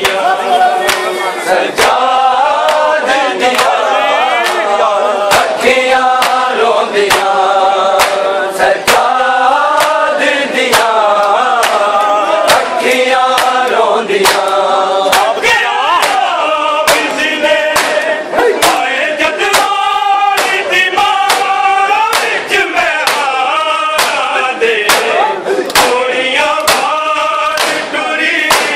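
Punjabi noha (Shia mourning lament) chanted by a male reciter together with a group of voices, with no instruments, over steady rhythmic matam strikes of hands beating on chests.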